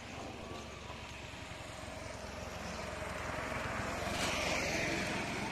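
A motor vehicle approaching on the road, its engine and tyre noise growing steadily louder over a few seconds.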